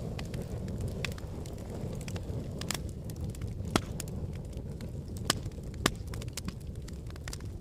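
Wood fire crackling in a fireplace: a steady low rumble with irregular sharp pops, a handful standing out clearly.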